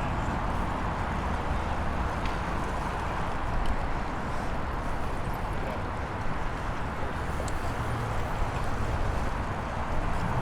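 Steady rushing noise of nearby road traffic and moving air heard from a bicycle while riding, with a deep even rumble and a few faint ticks.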